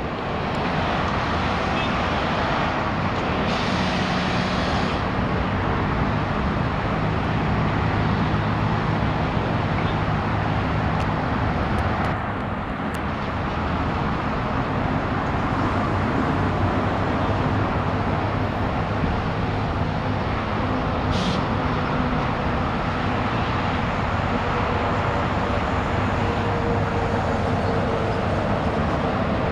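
Steady engine noise of road-construction machinery and passing traffic, with a short hiss about four seconds in and another briefly around twenty-one seconds.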